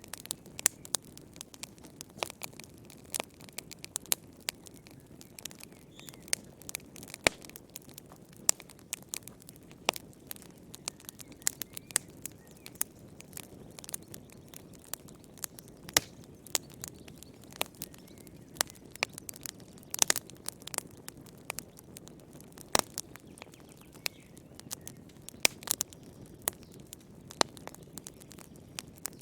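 Wood fire crackling in a fireplace: irregular sharp pops and snaps over a low, steady hiss of the burning fire.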